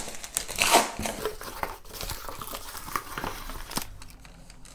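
A cardboard parcel being opened by hand: the flaps and packing crinkle and rustle, with scattered small knocks. The handling is busiest in the first second and grows quieter toward the end.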